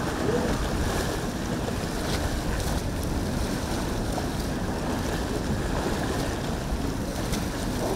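Wind buffeting the microphone over steady surf, with a catamaran powerboat's engines faintly heard running at speed in the distance.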